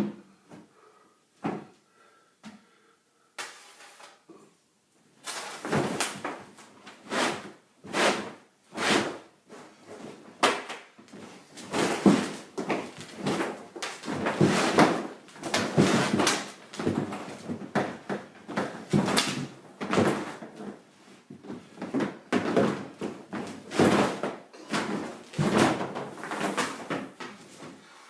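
Plastic whitewater kayak scraping and bumping on a hard floor as it is rocked and rolled over by its paddler, with a sharp thump at the start. Then, about five seconds in, a long run of irregular scrapes and knocks, roughly one a second.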